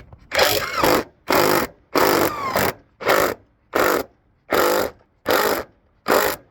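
Drill driving a screw through a gutter hanger bracket in about eight short trigger pulses, the motor speeding up and stopping each time. As the screw goes in, it draws the bracket tight and lifts the sagging gutter level.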